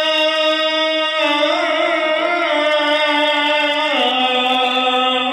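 A muezzin's call to prayer (adhan) chanted from the minarets of the Grand Mosque in Mecca. One male voice holds a long note, winds through ornamented turns in the middle, and steps down to a lower held note about four seconds in.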